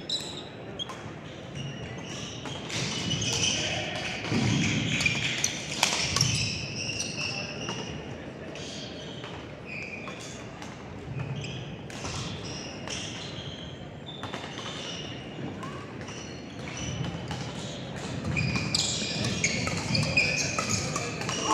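Badminton doubles play: sharp racket hits on the shuttlecock and sneakers squeaking on the court floor, over a murmur of voices.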